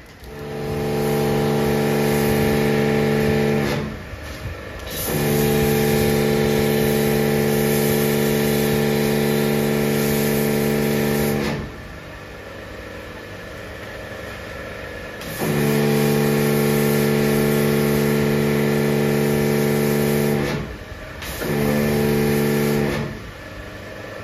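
Pressure washer at a bike wash, its motor running with a steady hum and the hiss of the spray while a motorcycle is washed. It runs in four spells of a few seconds each, starting and cutting out sharply in between as the spray gun is triggered and released.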